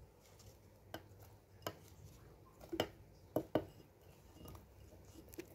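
Slices of raw mango tipped from a glass bowl into a stainless steel grinder jar: a handful of light, separate knocks and clinks as pieces drop in and the bowl touches the jar.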